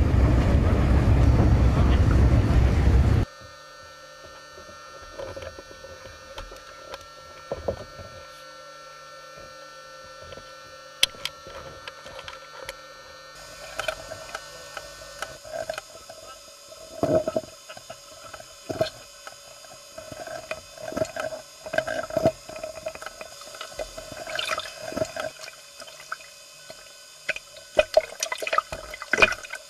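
A boat running with wind on the microphone for the first three seconds, then an abrupt drop to a quieter steady hum with scattered knocks and clatter of diving gear handled on deck, busier in the second half.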